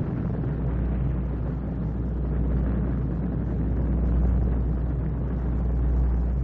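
Sound-designed film effect: a deep, steady rumble under a rushing, wind-like hiss, with no sharp impacts. It starts at a cut and swells gently a couple of times.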